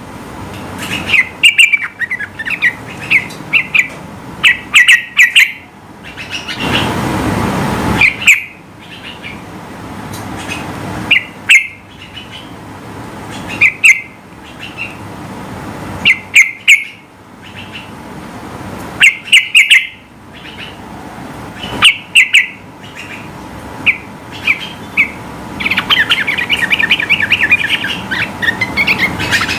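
Yellow-vented bulbul (trucukan) calling in loud, short clusters of chirps every two or three seconds, breaking into a faster, denser chatter near the end. A brief rush of noise cuts in about seven seconds in.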